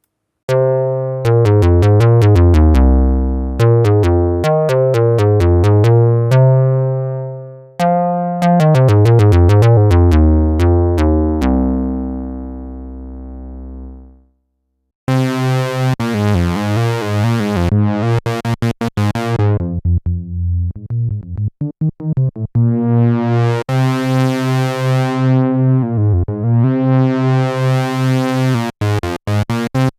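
Softube Model 72, a software Minimoog emulation, playing monophonic synth phrases. First comes a low, fat bass line that ends on a held note fading out about halfway. After a short break a second phrase follows: its tone brightens and darkens several times, and it ends in rapid short notes.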